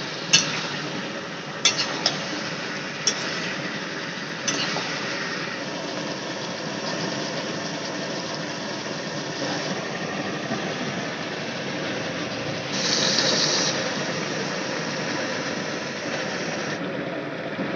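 Chicken curry frying in a steel wok over a portable gas stove: a steady hiss of the burner and the cooking, with a metal spatula clinking against the wok about five times in the first few seconds. A brief louder hiss comes about two-thirds of the way through.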